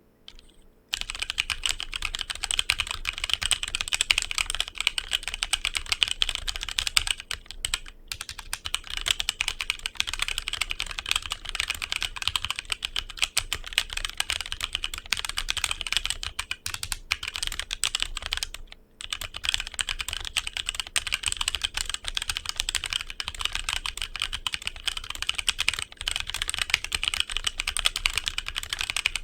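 HyperX Alloy Origins Core mechanical keyboard with HyperX Aqua tactile switches being typed on quickly, a dense stream of key clicks that starts about a second in, with two brief pauses.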